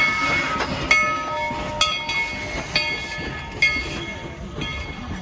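Steam locomotive bell ringing steadily, about one stroke a second, each stroke ringing on and dying away, growing fainter near the end.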